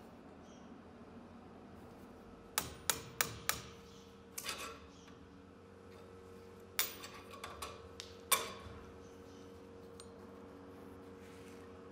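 Hammer blows on a steel pin punch driving the handle pins out of a rusty karambit held in a bench vise: four quick sharp metallic taps about two and a half seconds in, a couple of softer ones, then another run of taps about seven seconds in that ends with the hardest strike. A steady low hum runs underneath.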